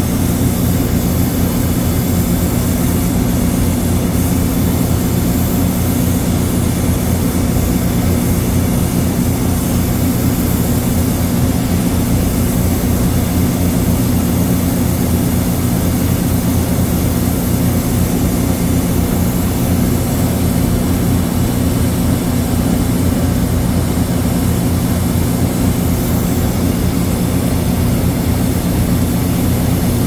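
Oxy-acetylene brazing torch flame hissing steadily on a copper line at the compressor, over a steady low mechanical hum from running refrigeration machinery.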